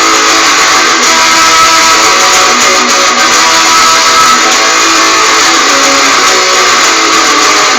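Guitar strummed steadily, playing a song. The sound is loud and thin with little bass, recorded through a phone's built-in microphone.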